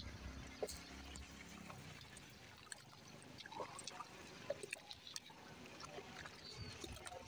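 Faint sea waves lapping and washing on the shore, with scattered small clicks over the water sound.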